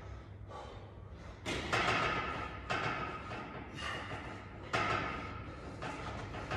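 Thuds and knocks from a steel pull-up rig as a man jumps to the bar and swings on it, several of them about a second apart, each with a short ring after it.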